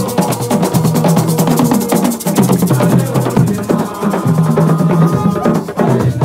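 Drum ensemble playing a fast, dense rhythm, with many sharp strokes over a low, booming drum.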